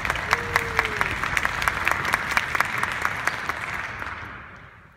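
Audience applauding, the clapping dying away over the last second.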